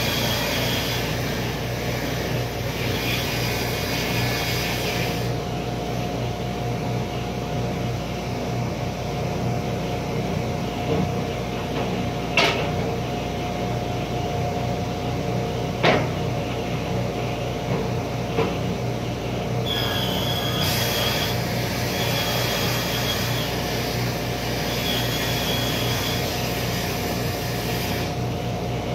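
Woodworking table saw running steadily with an even hum and a constant tone, and a hissier high layer at the start and again about two-thirds through. A few sharp knocks stand out near the middle.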